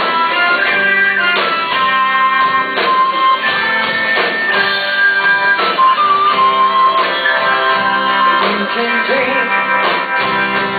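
Live rock band playing an instrumental passage, guitar to the fore, over a steady beat.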